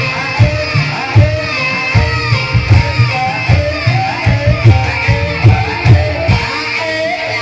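Live gamelan music accompanying an ebeg horse dance: regular drum strokes about twice a second under a melody of short, gliding notes.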